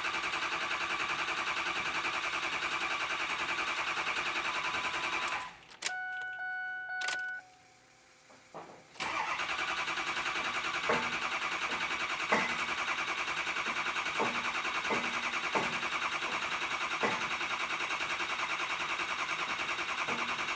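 Ford 6.0L diesel engine cranking on the starter without catching, in a steady pulsing rhythm. The cranking stops about five seconds in, a few short electronic tones sound during a brief pause, then cranking resumes with a few sharp clicks. This is the slow crank of an engine waiting to build injection oil pressure.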